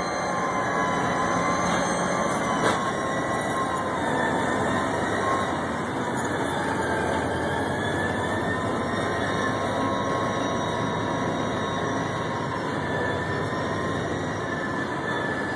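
CSX diesel locomotive and its freight cars rolling slowly over curving track through a grade crossing, with a steady rumble of wheels and engine under thin, wavering squeal from the wheel flanges. A single sharp click sounds about two and a half seconds in.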